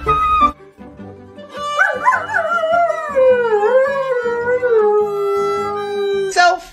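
A German Shepherd howling along to a violin: one long howl that starts high about two seconds in, slides down in pitch and then holds, over the violin's notes.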